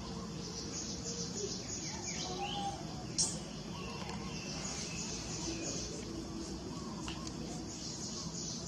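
Outdoor ambience of a pulsing insect chirr with scattered short bird chirps, and a single sharp click about three seconds in.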